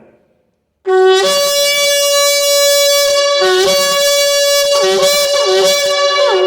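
A ram's-horn shofar blown in one long, loud call that starts about a second in. A low note jumps up to a higher held note, which drops back briefly to the low note several times.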